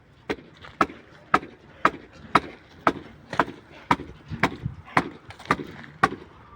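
Hammer blows in a steady rhythm, about two sharp strikes a second, a dozen or so in all.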